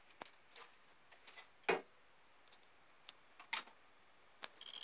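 A few scattered light clicks and knocks of handling, the loudest about two seconds in, with a faint high whine starting near the end.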